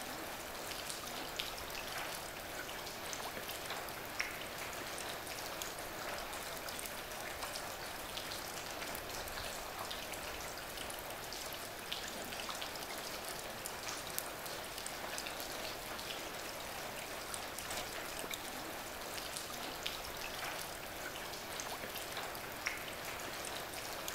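Steady rain: an even hiss with scattered small drop ticks.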